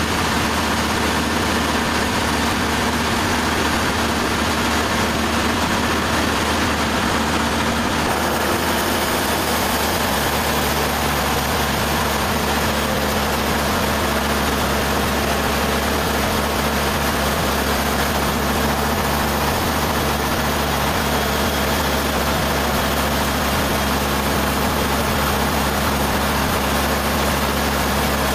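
Sawmill machinery running steadily, a constant engine-like hum with a low, unchanging pitch. Its tone shifts slightly about eight to ten seconds in.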